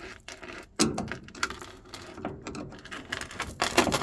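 Screwdriver working at a screw on a washing machine's drain pump, with irregular metal clicks and scrapes. The sharpest knocks come about a second in and again near the end.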